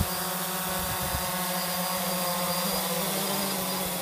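DJI Phantom 2 quadcopter's four electric motors and propellers whining at a steady pitch as it descends and sets down on a landing board.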